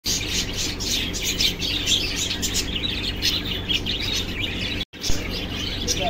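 A flock of cockatiels chirping continuously, many short overlapping chirps at once, over a steady low hum; the sound cuts out for an instant about five seconds in.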